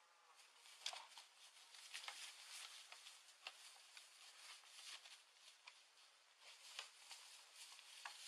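Faint, irregular rustling and crackling of dry leaves and twigs, with scattered sharp snaps over a low hiss.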